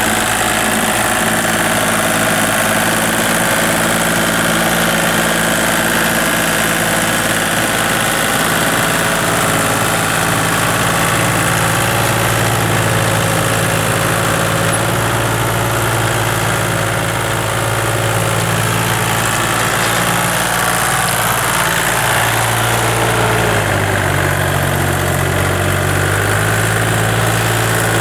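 Kubota compact tractor's small diesel engine running steadily while pulling a harrow through a wet rice field, its pitch shifting a few times in the last several seconds.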